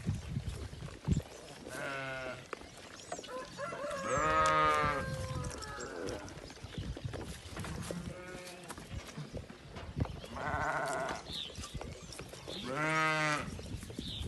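Boer goats bleating: about five separate bleats spread through the stretch, the loudest one a few seconds in.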